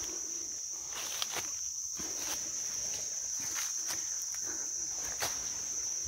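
Insects buzzing steadily at one high pitch, with scattered crunches and clicks of footsteps on dry leaf litter.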